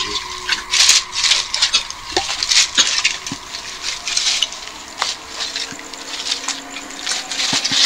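Footsteps crunching and rustling through dry leaves and undergrowth, in irregular bursts with a few sharp clicks.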